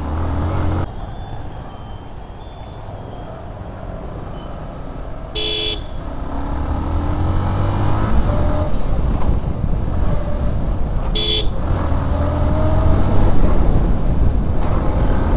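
Motorcycle riding in traffic with wind rumble, its engine rising in pitch as it speeds up, and growing louder over the stretch. A vehicle horn toots twice briefly, about five seconds in and again about eleven seconds in.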